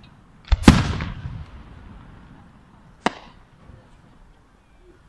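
Aerial firework shells exploding: a loud bang about half a second in that fades away over a second or two, then a single sharper, shorter crack about three seconds in.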